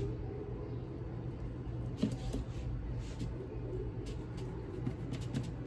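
A plastic knife cutting through cooked brisket, with a few light clicks and scrapes, over a steady low hum.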